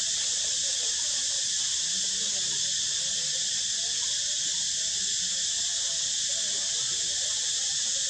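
Forest insects droning in a steady, high-pitched chorus that does not change.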